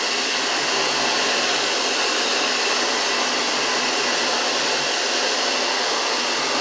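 GRUNDIG VCR 2330 robot vacuum cleaner running, a steady, unbroken whooshing hum from its suction motor.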